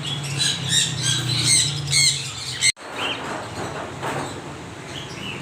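Parrots squawking in a quick series of short, shrill calls, broken off suddenly about two and a half seconds in; after the break, softer chattering and scattered calls.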